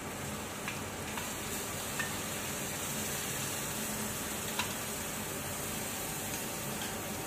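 Chicken masala sizzling in a metal kadai as beaten yogurt is poured in and stirred with a steel ladle: a steady frying hiss with a few light clicks of the ladle against the pan.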